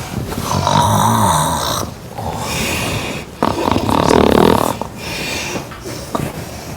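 A woman snoring loudly in her sleep: two long snores of about a second and a half each, with quieter breathing between them.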